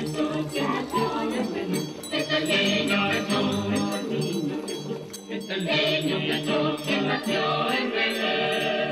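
Background music: several voices singing together over instruments with a steady beat.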